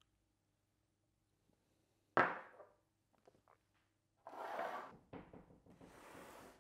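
A small ceramic cup set down on a wooden tabletop with a sharp knock about two seconds in, then a few light clicks. After that come two spells of scraping as a cardboard box is slid across the table.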